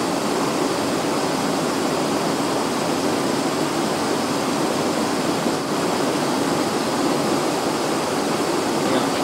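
Steady rushing cockpit noise of a Cessna Citation Encore business jet in flight, airflow over the cabin and its twin turbofan engines, with no change in level.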